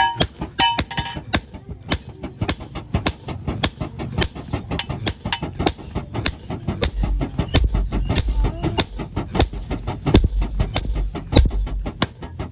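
Hand hammer forging a red-hot steel knife blade on a small post anvil: a steady run of sharp metallic blows, about three a second, with a brief ringing of the anvil at the start.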